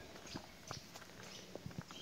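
Footsteps of a person walking: an uneven string of steps and light scuffs, the strongest a little after the middle and near the end.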